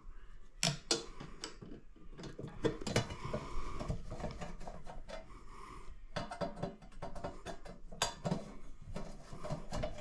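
Irregular small metal clicks and clinks from a screwdriver loosening the mounting screws of a ceiling light fixture, with the loose fixture rattling as it is handled.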